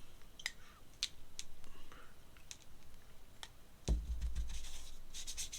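Scattered small clicks and taps of a paintbrush and paint being handled. About four seconds in comes a low thump, and near the end the brush starts scrubbing paint onto paper.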